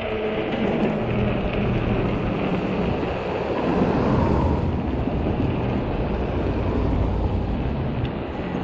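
Wind buffeting the microphone over the low rumble of a fat-tire e-bike's tyres rolling on rough, cracked pavement as the bike slows. The noise swells briefly about four seconds in.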